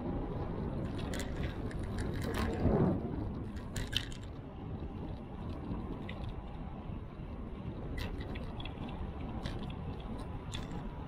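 Steady low rumble of a bicycle on the move picked up by a bike-mounted action camera, with scattered light clicks and rattles from the bike. The noise swells briefly about two and a half seconds in.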